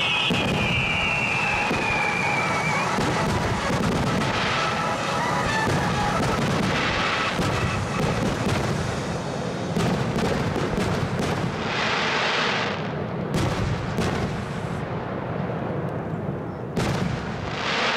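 Aerial firework shells bursting in a display: repeated bangs and crackling, with several whistles falling in pitch in the first few seconds.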